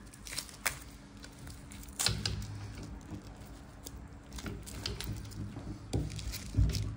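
Plastic protective wrapping rustling and brass lamp fittings clicking as they are handled, a few sharp clicks among softer rustles.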